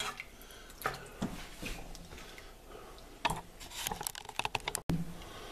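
Scattered light clicks and taps of hands and a utensil working chopped vegetables into a pot of broth. The audio drops out for an instant near the end.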